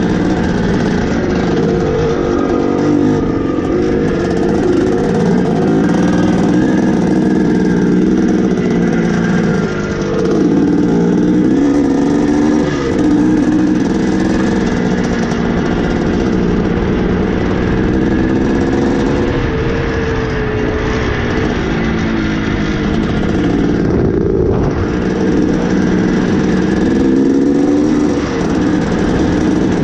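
1981 Suzuki RM465's 465 cc single-cylinder two-stroke engine running under way, heard from the rider's seat, its pitch rising and falling as the throttle is worked.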